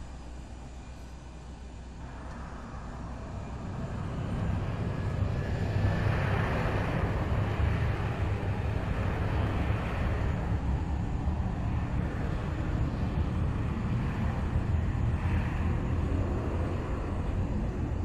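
Boeing 737 airliner's jet engines spooling up to takeoff thrust: a deep rumble with a rushing hiss that builds over the first few seconds, then holds steady and loud as the plane rolls down the runway.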